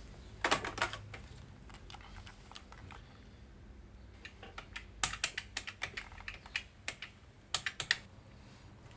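Typing on a computer keyboard in quick runs of clicks: a short run about half a second in, a longer run in the middle and a brief one near the end.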